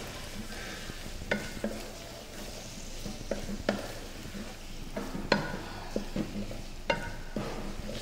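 Chicken pieces sizzling in hot oil in a metal pot as a wooden spatula stirs them, with sharp knocks of the spatula against the pot about once a second.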